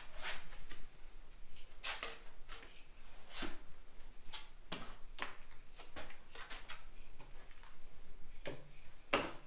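Steel drywall taping knife scraping taping mud off its pan and swiping it along a drywall corner to fill a narrow gap: a string of short, uneven scrapes.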